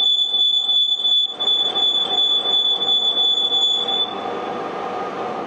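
Okuma CNC lathe turning tool cutting the outside diameter of a steel blank, with a steady high-pitched squeal of tool chatter over the rough cutting noise. The squeal cuts off about four seconds in and the machine noise carries on, a little quieter. The chatter is accepted as fine for a cleanup cut taken only to get a diameter.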